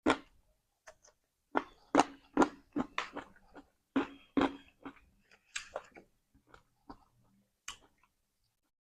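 A mouth chewing crispy fried mujair fish, with sharp crunches about two or three a second, then slowing and growing fainter over the last few seconds.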